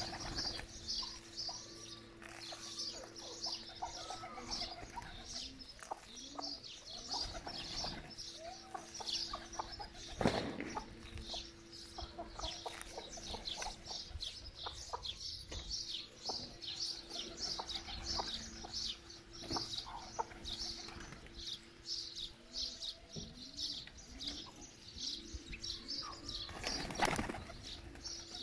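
A flock of pigeons and chickens with wings flapping now and then, loudest about ten seconds in and again near the end, over steady high chirping and occasional clucks and coos.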